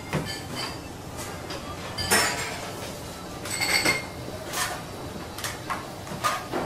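Restaurant kitchen clatter: dishes, utensils and metal pots knocking and clinking over a steady background, the loudest knock about two seconds in and a ringing clink about a second and a half later.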